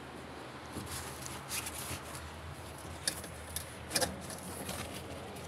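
Plastic wrapping on a washing machine rustling and rubbing as it is handled, with scattered clicks; the sharpest click comes about four seconds in.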